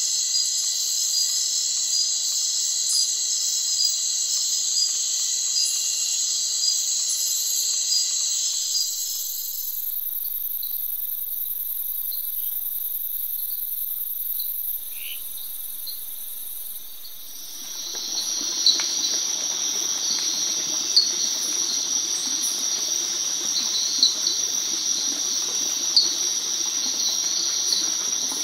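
Night chorus of rainforest insects, a steady high-pitched trilling of crickets and katydids. The chorus changes pitch about ten seconds in, and again about two-thirds through, when a lower, noisier layer joins and sharp chirps come about every two seconds.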